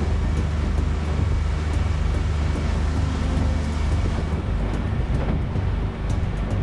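40 hp tiller-steered outboard motor running at speed, with water rushing past the aluminium hull and wind on the microphone. The engine note drops about four seconds in.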